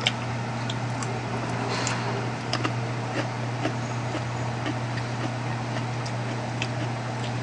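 Scattered faint clicks and taps of chopsticks against dishes while eating, over a steady low hum.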